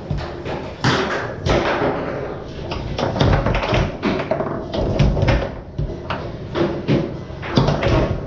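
Foosball in play on a Tornado table: the ball struck by the men and banging off the table walls, with the rods clacking, as a string of irregular sharp knocks and cracks.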